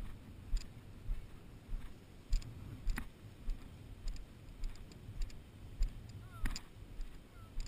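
Footsteps walking through tall field grass: steady thuds and light clicks at walking pace, about two steps a second.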